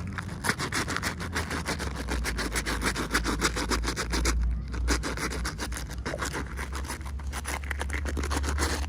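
Rapid, repeated rubbing and scratching strokes, with a short pause about four and a half seconds in, over a steady low hum.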